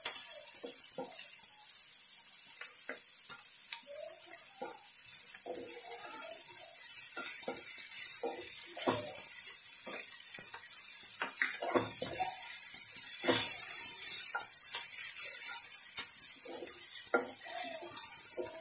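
A spatula stirring a frying spice masala in a nonstick frying pan, with irregular knocks and scrapes against the pan. A sizzle of frying comes up under it, growing stronger past the middle.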